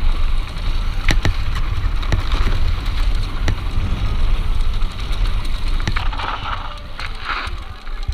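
Downhill mountain bike running fast down a rough trail: wind buffeting the action camera's microphone, tyre noise, and sharp rattling knocks as the bike hits bumps. Two brief hissing scrapes come about six and seven seconds in.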